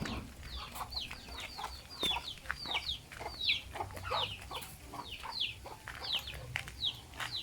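Chickens calling: a steady run of short, high-pitched calls, each falling in pitch, about two a second.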